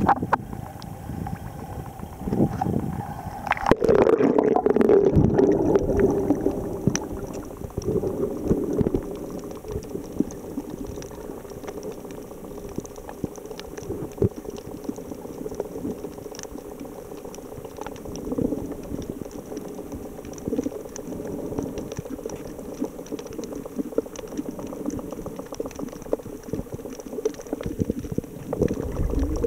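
A camera plunges into the sea with a loud splash about four seconds in. After that comes muffled underwater water noise and bubbling heard through the camera housing, with scattered faint clicks.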